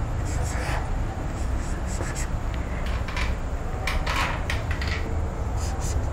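Sheets of paper being handled and slid on a table: a few short scratchy rubs and rustles, the busiest stretch about four seconds in, over a steady low hum.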